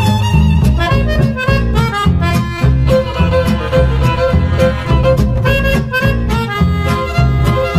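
Upbeat country-western instrumental music, with a bouncing bass beat under a lead melody.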